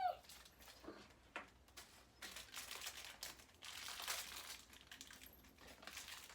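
Toy packaging being unwrapped by hand, the wrapping crinkling and rustling in irregular handfuls with small clicks.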